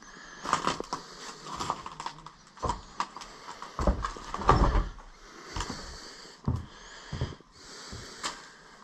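Footsteps and handling noise on old wooden floorboards and loose broken boards: irregular knocks, thuds and scuffs, with the heaviest thuds around four to five seconds in.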